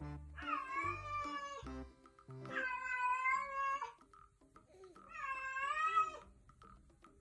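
A domestic cat meowing three times, each a long, drawn-out call bending in pitch, with background music underneath.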